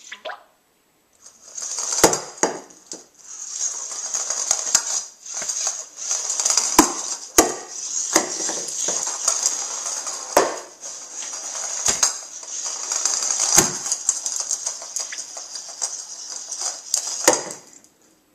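Sphero 2.0 robotic ball driving across a terrazzo floor: a steady high whine of its drive motors and rolling plastic shell, with sharp hard-plastic knocks every second or so as it bangs into the baseboard and cabinet, testing whether the reglued shell holds.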